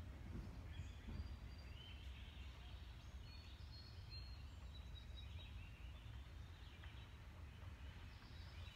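Faint outdoor ambience: a steady low rumble with scattered high chirps of birds.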